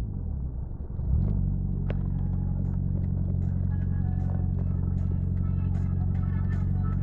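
Nissan SR20DET turbocharged four-cylinder engine, heard from inside the car. It sags and wavers for about the first second, then runs steadily at low revs, around 2000 rpm, as the car cruises.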